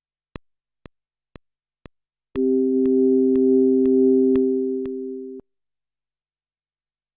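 Elektron Digitone metronome clicking twice a second with every fourth click accented: a one-bar count-in. On the next downbeat a held synth chord of several steady notes comes in under the clicks. It sounds for about three seconds, fades a little and cuts off suddenly.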